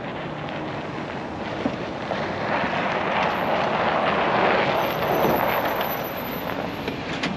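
Ram 2500 pickup with a front snowplow driving up over packed snow and passing close by. The engine and tyre noise swells as it nears, loudest about four to six seconds in, then eases.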